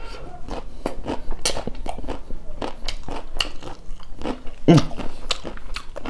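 Close-miked chewing of a mouthful of crunchy singju, a Manipuri salad eaten by hand: irregular crisp crunches, several a second.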